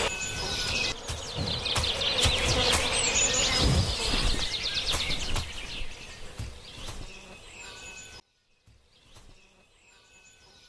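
Flies buzzing with birds chirping and trilling in the background. The sound drops sharply about eight seconds in, leaving only faint bird chirps.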